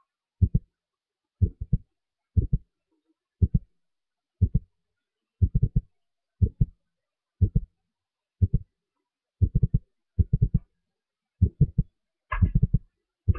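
A regular series of low, muffled thumps, one small cluster of two to four quick strokes about every second, with silence between; a brighter, sharper cluster comes near the end.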